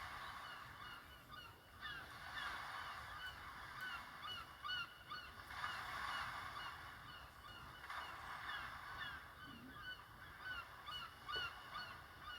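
Samsung Galaxy Star GT-S5282 nature ringtone playing through the phone's speaker: a recording of a flock of birds giving many short, quick calls.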